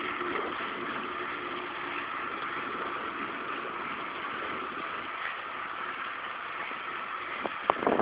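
Steady rush of wind over the microphone and tyre noise from a bicycle coasting fast downhill. A few short knocks near the end.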